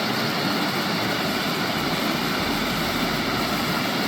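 Rain-swollen stream water rushing steadily through a beaver dam analog, a constant even hiss. A faint low rumble is added from about two seconds in.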